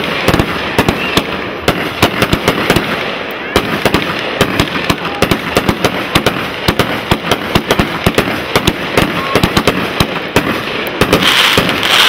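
Ground-level firework fountain going off, a dense run of rapid, irregular crackles and pops, with a louder hiss near the end.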